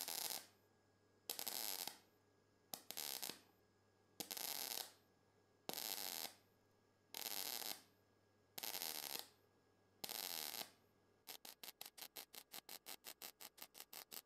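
Cebora Pocket Pulse MIG welder in spot-time mode stitch-welding thin drywall steel profile: eight half-second bursts of arc crackle, each followed by a pause of under a second, as the machine times 0.5 s of weld and 0.8 s of pause while the trigger is held down. About eleven seconds in, the sound changes to a fast run of short pulses, several a second.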